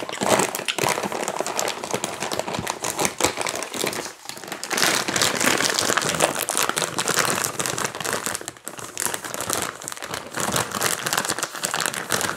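A wrapper crinkled and crumpled in the hands right by a clip-on microphone: dense, continuous crackling that dips briefly about four and eight and a half seconds in.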